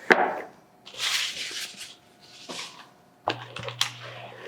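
Keyboard box packaging being handled and opened: a sharp knock, then about a second of rustling and sliding, followed by a few light clicks.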